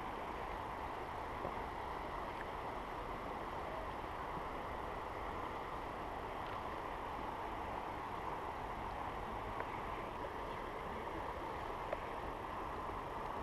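Steady rushing of flowing creek water, with a few faint ticks.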